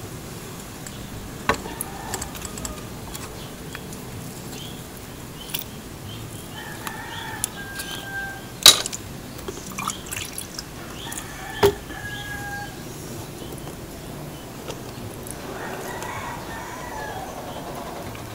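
A rooster crowing a few times in the background, each call held about a second. Several sharp clicks sound close by, the loudest about halfway through.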